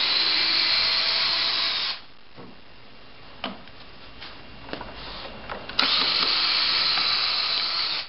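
Cordless drill spinning screws out of a wooden concrete-beam form, in two runs of about two seconds each with a short pause and a small click between them.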